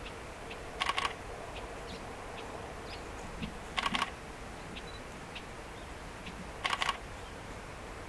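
Three short bursts of rapid camera shutter clicks, three or four clicks per burst, about three seconds apart, with faint scattered ticks between them.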